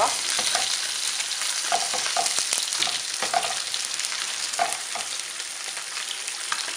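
Sardine fillets frying in hot oil in a pan: a steady sizzle, with a few short clinks as metal tongs turn the fish.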